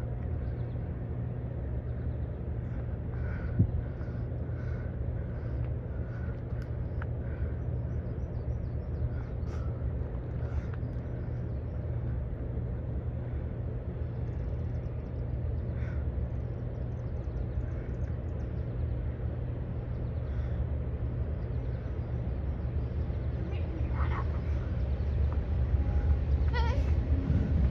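Approaching diesel locomotive, its low engine drone steady and then growing louder over the last few seconds as it nears.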